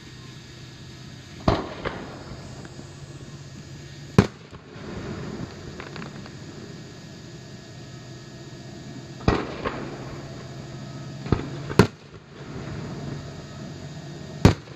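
Aerial fireworks shells bursting: about seven sharp bangs at irregular intervals, some with a short echoing tail, the loudest about four seconds in, near twelve seconds and just before the end.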